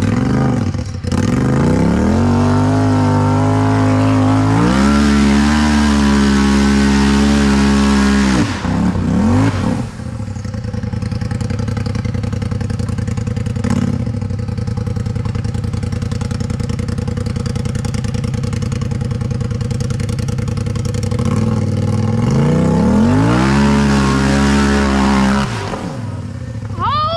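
Turbocharged Polaris RZR side-by-side engine revving hard in bursts as it climbs a steep rock hill under heavy load, the revs rising, holding high, then dropping, twice over. Between the bursts the engine runs at steadier, lower revs.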